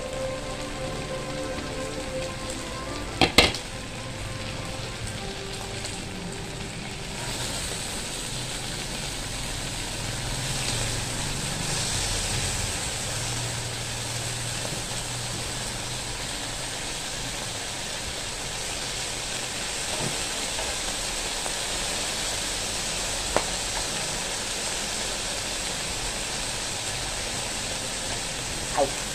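Meat sizzling on an electric grill pan, a steady hiss that grows brighter after about seven seconds, with a few sharp clicks.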